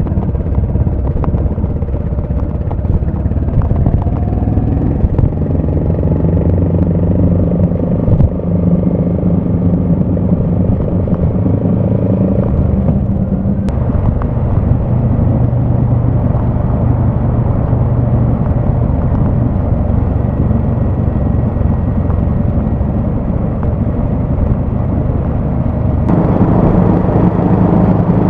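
Honda GB350's single-cylinder engine running under way, heard from the bike. Its note steps up and down in pitch a few times, and it gets louder and brighter near the end.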